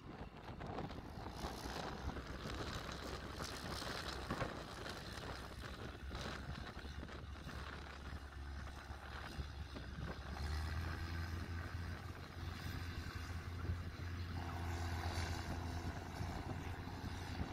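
Engine of a large four-wheel-drive packing tractor running under load as it pushes and packs chopped triticale silage on a bunker pile. A steady low engine hum grows stronger about ten seconds in.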